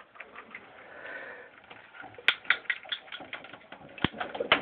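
A clamp curling iron and hair being handled: faint rustling, then from about halfway in a quick irregular run of light clicks and taps, one sharper than the rest.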